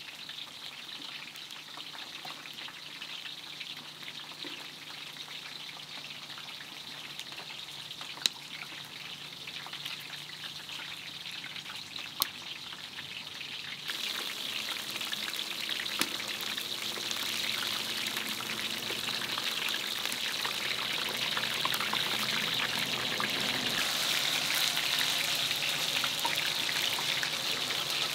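Food frying in hot oil: a dense sizzle with crackles and a few sharp ticks. It jumps suddenly louder about halfway through and keeps building.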